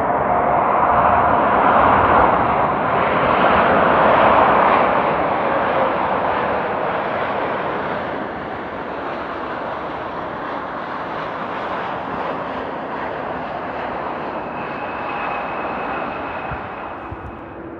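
Boeing 787-10 airliner passing on its landing, jet engine noise loudest at first with a slightly falling tone, then fading steadily as it moves away.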